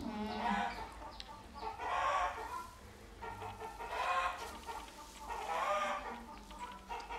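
An animal calling repeatedly, one drawn-out cry about every two seconds, over a faint steady low hum.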